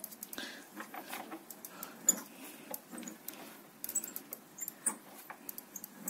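Two-stroke engine turned over slowly, giving faint, irregular squeaks and small clicks from the crankshaft area. The squeak appears only with the engine warm, and the owner suspects a crankshaft bearing.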